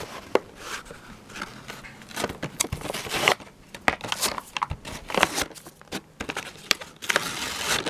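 Stiff plastic blister packaging crinkling and crackling in the hands as a series of sharp clicks, with a longer tearing sound near the end as the cardboard backing is ripped open.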